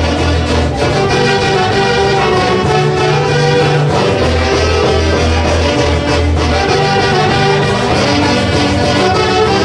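A Peruvian folkloric orchestra plays Santiago-style dance music, with a loud wind section over a steady bass line of held notes.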